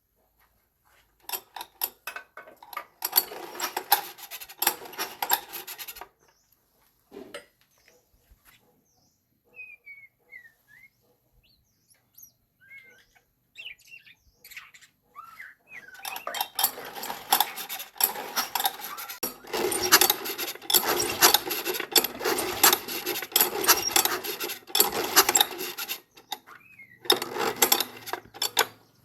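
Metal scraping, rubbing and clinking of hand tools on metal parts, in two long busy bouts with a quieter stretch between.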